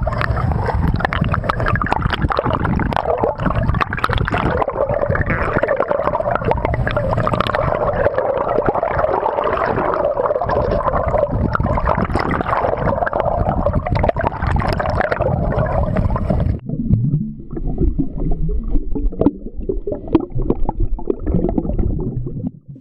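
Underwater sound picked up by a phone held below the sea surface: loud rushing and gurgling water with a steady drone through it. About 16 seconds in it drops suddenly to a quieter, duller rumble.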